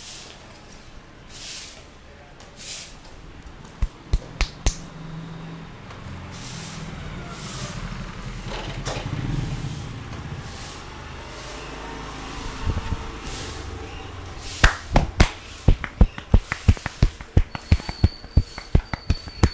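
Hands slapping and tapping on a head in a barber's head massage: a fast, even run of sharp smacks, about three a second, starting about three quarters of the way through. Earlier there are three quick smacks about four seconds in, over steady background noise.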